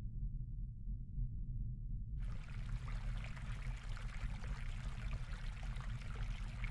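A low steady drone, joined about two seconds in by a steady fizzing, trickling hiss.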